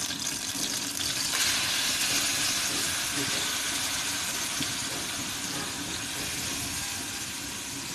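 Marinated beef sizzling in hot oil in a frying pan. The hiss swells about a second in as the meat goes into the pan, then slowly dies down.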